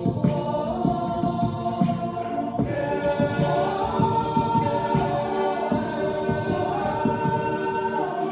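Men's choir singing in harmony, holding long chords that move in steps, over a steady low rhythmic pulse of short accented notes a few times a second.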